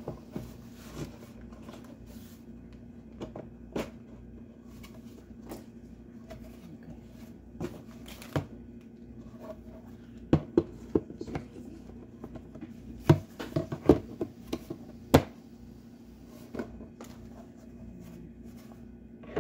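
Hard plastic parts of a Mainstays 3-tier cart knocking and clicking together as a leg post is fitted into a shelf bin. The knocks are scattered, with the loudest cluster about ten to fifteen seconds in, over a faint steady hum.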